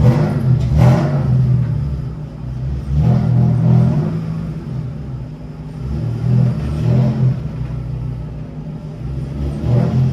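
Car engine running, swelling in a few short revs roughly every three seconds over a steady low running sound.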